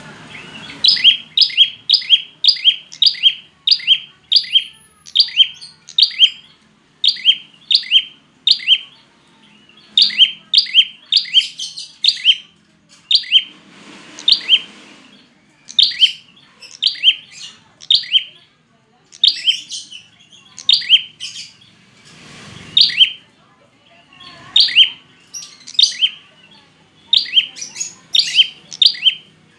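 Prinia (prenjak) calling: loud, sharp chirps repeated about two to three times a second in bouts, with short pauses between them, as used for a lure call. Two brief bursts of noise break in, about halfway and two thirds of the way through.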